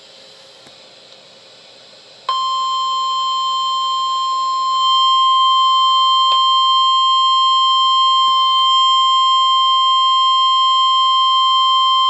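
NOAA Weather Radio warning alarm tone: after a faint hiss, a single steady 1050 Hz tone starts about two seconds in and holds for about ten seconds, cutting off suddenly. It signals that an emergency alert, here a severe thunderstorm watch, is about to be broadcast.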